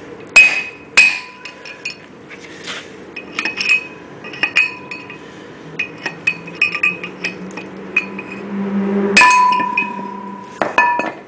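Hammer striking a steel punch to drive the bearing races out of a 1999 VW Cabrio rear brake drum: irregular sharp metallic strikes with a ringing tone. A couple of hard blows early on give way to lighter taps, with the hardest blow about nine seconds in and two more near the end.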